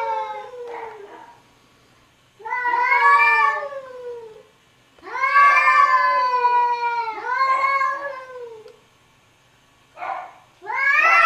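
Cats yowling at each other in a standoff: a string of long, drawn-out wails, each about one to two seconds, most sliding down in pitch as they end, with short pauses between them.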